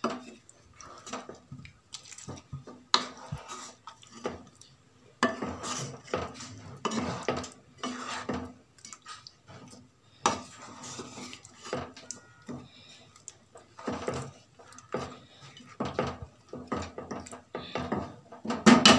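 A spatula stirring chicken pieces through a thick gravy in a nonstick frying pan, scraping the pan with irregular strokes and an occasional sharp knock. There is a louder clatter near the end.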